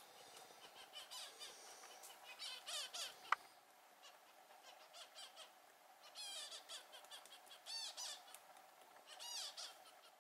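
Magellanic woodpeckers calling in short bouts of rapid, high-pitched notes every second or two, with one sharp knock about three seconds in.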